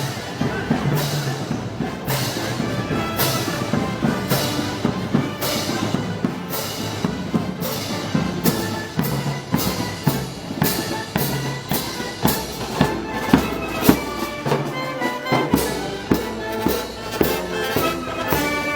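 A brass-and-percussion festival band plays Moros y Cristianos music, with sharp percussion strikes on the beat that come faster in the second half.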